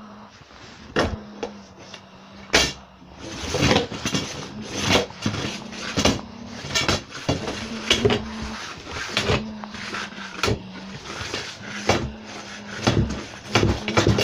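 Irregular knocks and clatter of hard objects being handled, about one or two a second and busier after the first few seconds, over a faint steady low hum.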